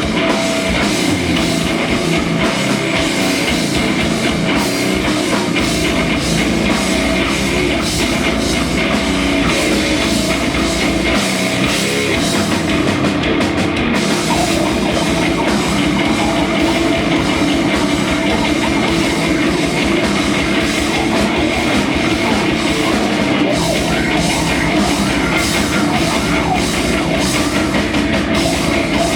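Live rock band playing a loud, heavy punk-metal song on a drum kit and amplified instruments, continuous throughout.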